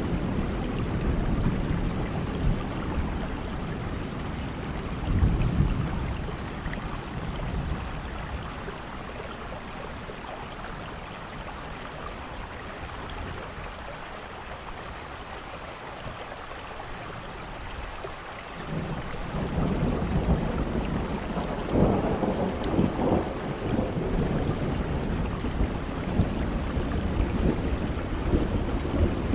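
Steady rain falling on a roof with rolling thunder. Low rumbles are heavy at first and die down through the middle, then a fresh roll of thunder builds about two-thirds of the way in.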